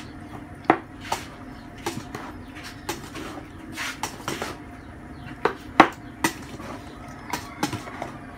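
Scattered light clicks and knocks of small hard objects being handled, irregular and a second or so apart, the sharpest about three-quarters of a second in and just before six seconds in, over a steady faint hum.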